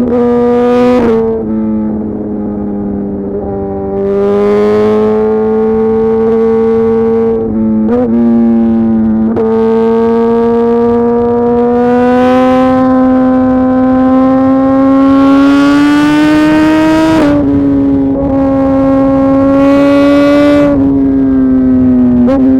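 2018 Suzuki GSX-R 1000 R's inline-four engine through a full titanium SC-Project exhaust, heard on the move. The note eases off and drops in level for a couple of seconds near the start, then climbs slowly in pitch over several seconds. It is broken briefly several times, the way a quickshifted gear change breaks it, and the pitch falls after the break about three-quarters of the way in.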